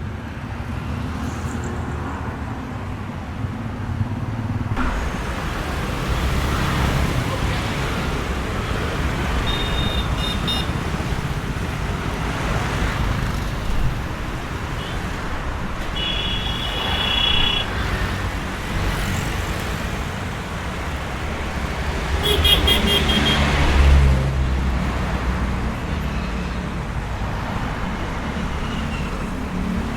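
Street traffic passing by: a steady wash of engine and tyre noise from cars and motorbikes, swelling from about five seconds in. Short vehicle horn beeps sound three times, and the loudest vehicle goes by with a deep engine note near the end.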